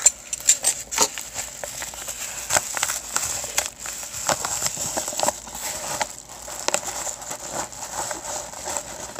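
A yellow paper mailer being cut open with a utility knife and pulled apart by hand: crackling and crinkling of the paper, with many sharp clicks and rustles throughout.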